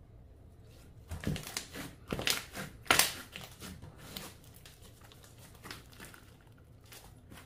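Clear slime being squished and pressed by hand, giving a run of crackling pops and clicks that is loudest about three seconds in, then thins to a few faint clicks.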